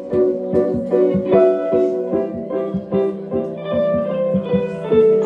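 Indie rock band playing live, with electric guitars picking a melody over keyboard and a steady beat.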